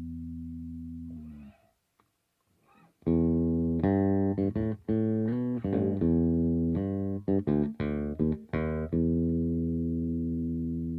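Aria Pro II CSB Deluxe electric bass played solo: a held note fades and is cut off, then after a short pause a quick run of plucked notes, ending on one long note left to ring.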